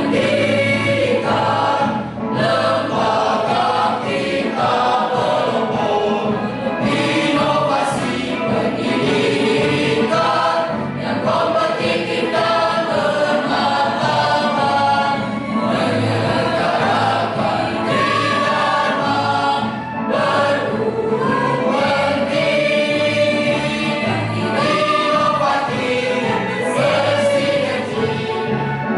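Choir singing in several parts, with sustained sung phrases and short breaks between phrases.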